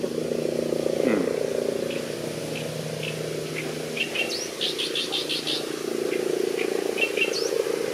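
Great reed warbler singing: short harsh notes, then a rapid grating chatter a few seconds in and a few more notes near the end. A continuous low drone runs underneath and is louder than the song.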